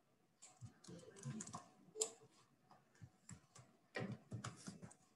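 Faint computer keyboard keystrokes in short irregular clusters, separated by brief pauses.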